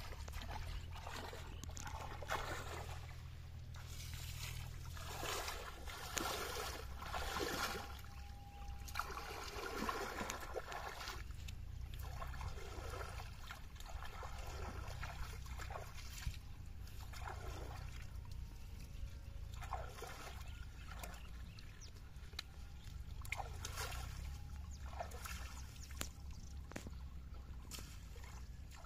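Shallow river water sloshing and splashing in irregular bursts as a cast net is drawn in by hand through the water by a wading fisherman, over a steady low rumble.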